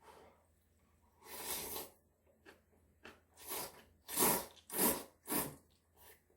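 Close-miked chewing of food in the mouth, with a bite about a second in and then a run of four chews about half a second apart.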